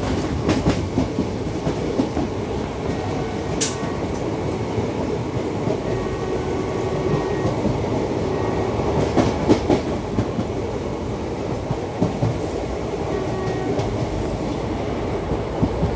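Passenger express train running at speed, heard from its own coach at an open door or window: a steady rumble and rattle of wheels on track. Now and then the wheels click over rail joints, with a sharp click about three and a half seconds in and a few more near the middle.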